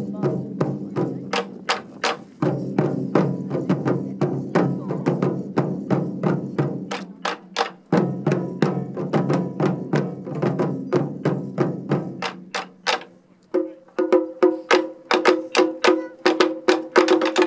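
Taiko ensemble drumming: chū-daiko barrel drums struck with wooden bachi in a fast, steady rhythm of sharp strikes over a low drum tone. The low tone drops out near 13 seconds in, and the drumming returns louder and quicker with a higher ringing pitch.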